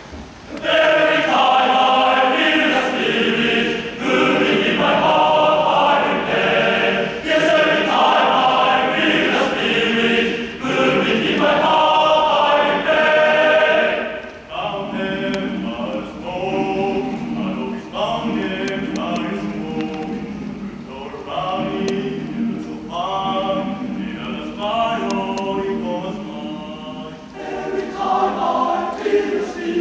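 Large male-voice choir singing a gospel or spiritual number. It enters full and loud about half a second in, then drops to a softer level about halfway through.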